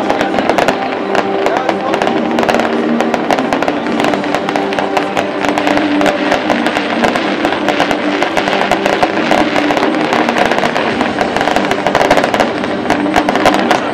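Large fireworks display: a dense, continuous run of bangs and crackles from shells bursting, with a crowd talking underneath.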